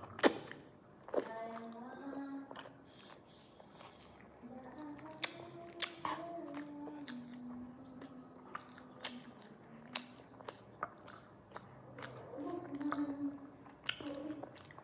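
A person biting and chewing spicy chicken close to the microphone, with sharp crunches scattered throughout.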